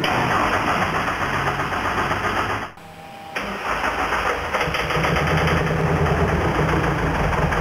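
Race-tuned VW Golf TDI four-cylinder turbodiesel engine firing up on its first start and running loudly. It drops away briefly about three seconds in, catches again, and then holds a steady low note.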